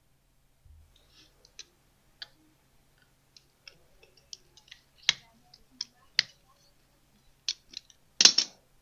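Fine .025 safety wire being worked through a wheel spinner with fingers and pliers: irregular small metallic clicks and ticks. A few sharper snaps come in the middle, and a louder short cluster of snaps comes near the end.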